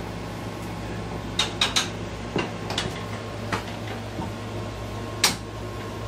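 Sharp, light taps of a hand hammer striking a metal chiropractic adjusting instrument held against the lower back: about six irregular taps, the loudest about five seconds in, over a steady room hum.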